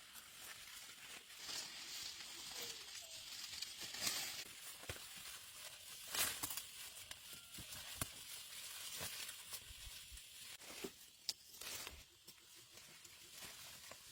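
Rustling and crackling of leaves and plant stems being handled, with scattered sharp snaps, the loudest about 4 and 6 seconds in.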